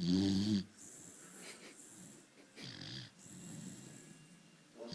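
A sleeping beagle snoring. It opens with one loud, droning snore of about half a second, followed by quieter snoring breaths roughly once a second.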